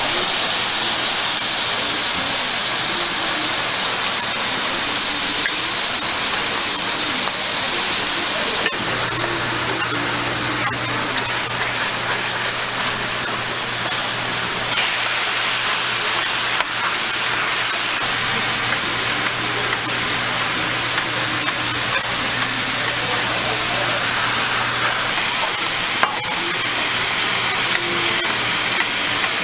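Meat rolls sizzling steadily on a hot flat-top griddle, with a few sharp clicks of metal tongs on the plate. A low steady hum joins about nine seconds in.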